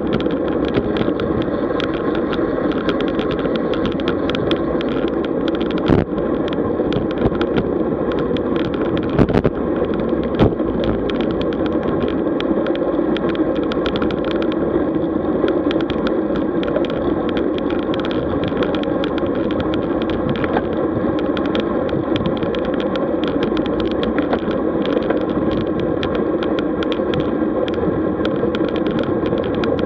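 Road bicycle ride: a steady rush of wind and tyre noise with many small clicks and rattles. A few louder knocks come about six seconds in and again around nine to ten seconds in.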